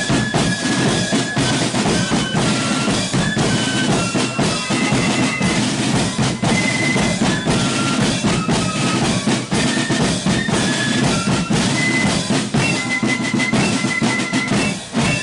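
Marching flute band playing: a tune on the flutes over snare drums and a bass drum.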